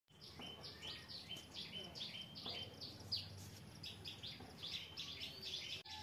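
Small songbirds chirping in a rapid, nonstop run of short, high notes, several overlapping at about four to five a second, broken briefly near the end.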